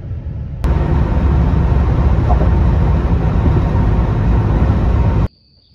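Road and wind noise inside a pickup truck's cab while driving at highway speed: a loud, steady rumble heavy in the low end, starting about half a second in and cutting off abruptly near the end.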